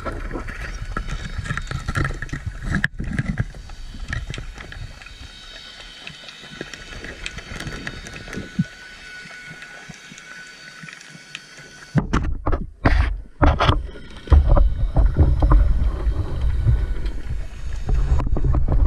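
Underwater sound picked up by a speargun-mounted camera: clicks and knocks from handling the speargun, line and speared white seabream, over a noisy water background. It goes quieter mid-way, then loud low rumbling and several strong knocks start about two-thirds of the way in as the gun is moved.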